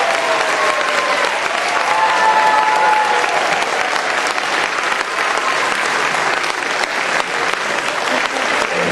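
Audience applauding, a dense, steady clapping that carries on without a break.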